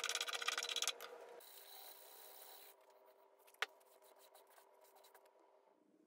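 Small brass hand plane taking quick, short strokes over a cherry workpiece, a rapid rasping that stops about a second in. Fainter rubbing follows, then a single light click.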